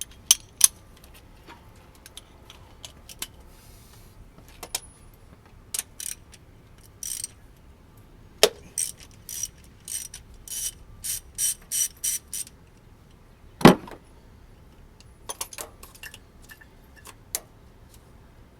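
Ratchet handle clicking in short runs, about two or three clicks a second, as a 27 mm deep socket on an extension turns out an oil pressure sensor, with scattered metal tool clicks and one loud knock about fourteen seconds in.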